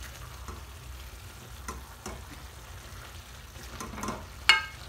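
Lamb, onions and tomato sizzling in a stainless steel pan in their own juices while a spatula stirs and scrapes through them, with faint clicks against the pan. About four and a half seconds in, a single sharp ringing knock of the spatula against the pan is the loudest sound.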